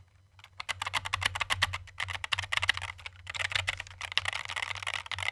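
Fast typing on a 60% mechanical keyboard fitted with double-shot PBT Cherry-profile keycaps: dense runs of key clicks, with short pauses about three seconds in and near the end.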